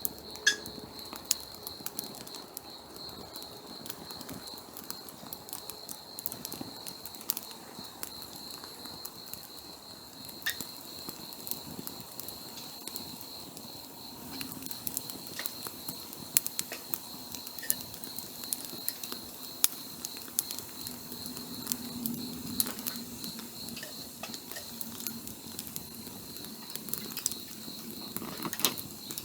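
Wood campfire crackling and popping, with irregular sharp snaps over a low hiss of burning. A steady high insect trill runs underneath.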